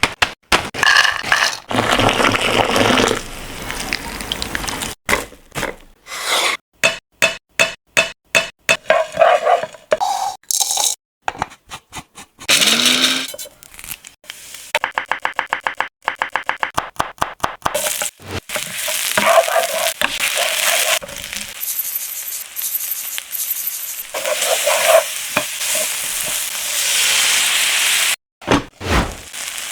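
A run of cooking sounds: soya chunks and masala sizzling and frying in a pan while being stirred. In between come runs of quick, sharp knocks and clatters.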